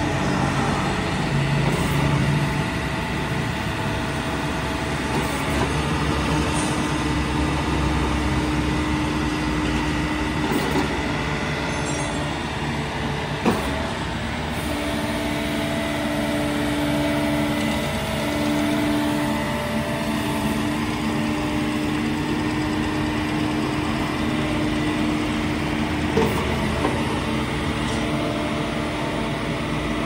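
Yanmar YB451U mini excavator's diesel engine running under load as the machine tracks and works its boom, with a steady-pitched whine that cuts in and out several times as the controls are worked. One sharp click about halfway through.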